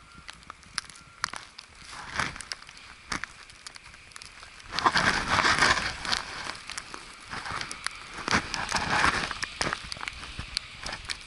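Footsteps crunching through snow, with scattered sharp crackles and two louder stretches of hissing noise, about halfway through and again a few seconds later.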